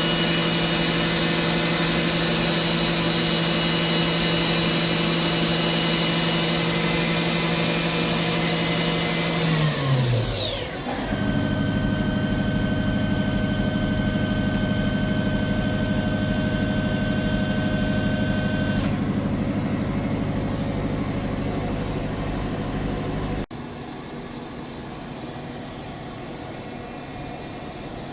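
Kitamura MyCenter 4XiD CNC vertical machining center running with a steady, high-pitched whine that winds down in pitch about a third of the way through, the way a spindle spins down. A different steady machine hum follows, then drops abruptly to a quieter hum near the end.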